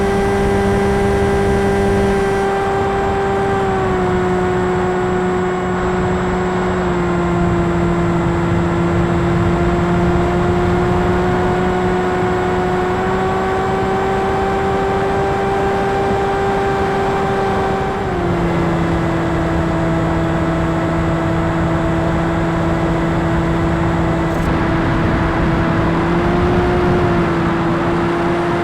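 Electric brushless motor and propeller of an RC plane, heard from the onboard camera, running with a steady whine over rushing air noise. Its pitch shifts in small steps as the throttle changes, dropping clearly about two-thirds of the way through.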